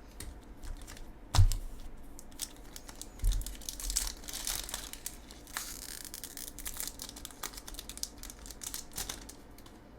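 Foil wrapper of a Magic: The Gathering collector booster pack crinkling and tearing open, with trading cards being handled in small clicks and rustles. A sharp knock comes about one and a half seconds in.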